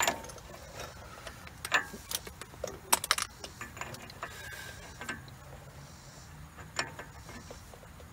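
Scattered metallic clicks and clinks from hand tools and parts being handled on the wheel hub, with a quick run of knocks about three seconds in.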